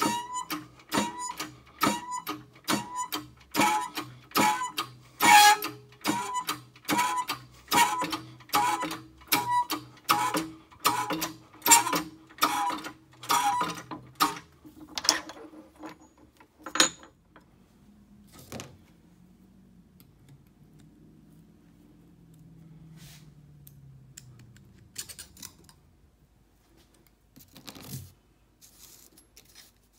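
Shop press being worked to push the transmission cluster shaft out of its end gear and bearing: a ringing metallic clack about twice a second for roughly the first half. Then a few louder single clanks, a faint low hum, and light metal clinks near the end.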